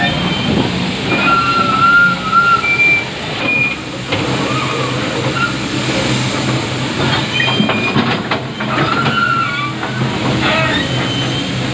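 Kobelco hydraulic excavator's diesel engine running under load as it digs and loads soil, with short high-pitched squeals and several clanks and knocks from the machine and bucket.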